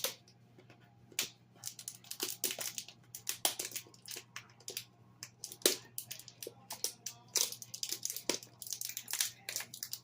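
Crinkly packaging being handled and opened: a kimchi package crackling and crinkling in irregular sharp bursts.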